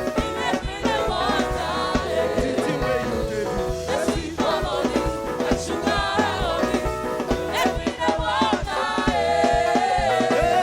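Upbeat gospel praise music: voices singing over a band with a steady drum beat.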